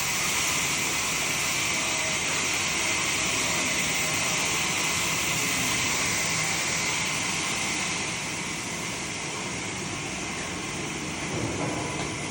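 Steady hissing noise of woodworking mill machinery running, easing slightly about eight seconds in.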